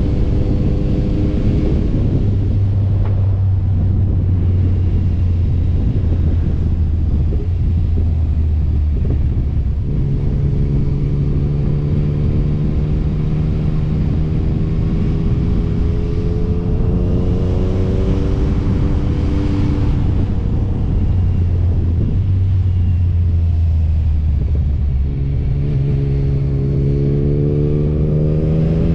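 Motorcycle engine heard from the bike itself, its note climbing slowly as it pulls and dropping back lower several times, over a steady low rumble.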